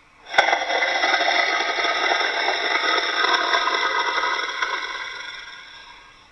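Homemade dinosaur roar sound effect: one long raspy roar that starts suddenly about half a second in and fades out over the last two seconds.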